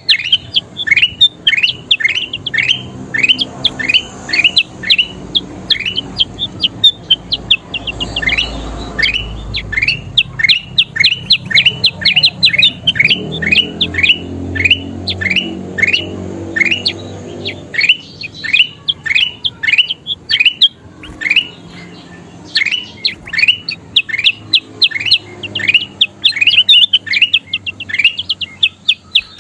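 A kutilang emas bulbul singing in fast runs of short, sharp notes, each sliding down in pitch, about three or four a second, with brief pauses between runs.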